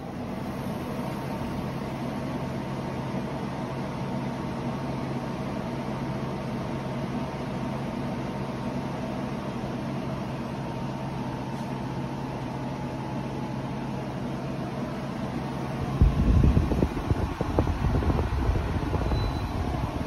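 A 12,000 BTU portable air conditioner running: a steady fan rush with a low, even hum. About four seconds before the end a louder, uneven low rumble comes in over it.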